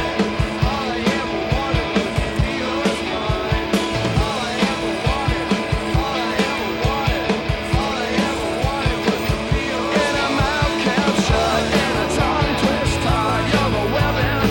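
Rock song with singing over a steady drum beat.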